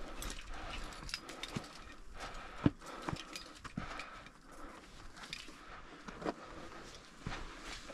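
Irregular knocks, clicks and scrapes of someone moving over rock on a mountain climb: footsteps and gear, with one sharper knock about two and a half seconds in.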